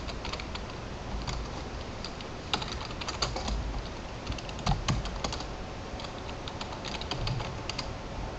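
Typing on a computer keyboard: runs of quick key clicks in short bursts with pauses between them.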